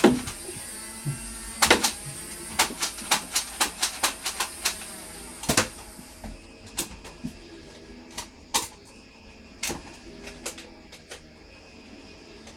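Nerf blaster fire: a quick run of sharp clicks and knocks of foam darts being shot and hitting, about three a second, over a steady hiss that stops about six seconds in, then scattered single clicks.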